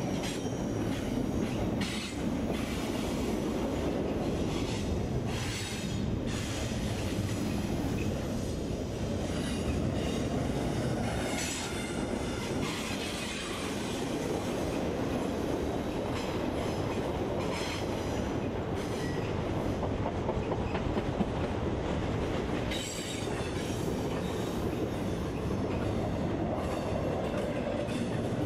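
Double-stack intermodal container train rolling past: a steady rumble of steel wheels on rail, with scattered clicks of wheels over rail joints and intermittent high wheel squeal.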